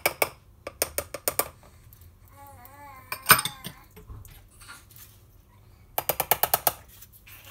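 Lumpy cocoa powder being sifted through a metal mesh sieve over a plastic bowl: a run of sharp clicks as the sieve is tapped near the start, and a fast rattle of clicks near the end as a metal spoon knocks and scrapes the cocoa through the mesh.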